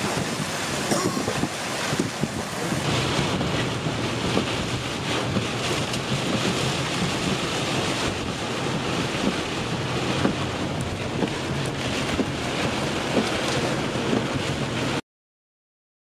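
Torrential rain and violent wind in a severe thunderstorm, a dense steady rush with gusts buffeting the microphone. It cuts off abruptly to silence about a second before the end.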